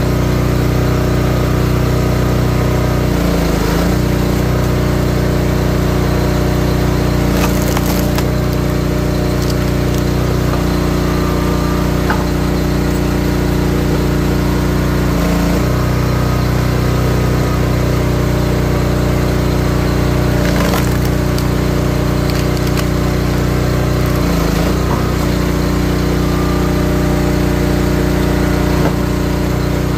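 Wolfe Ridge 28-ton high-output hydraulic log splitter's gas engine running steadily, its note shifting each time the ram pushes through a round, about every five seconds. Firewood rounds cracking and splintering as they split, sharpest about 8 and 21 seconds in.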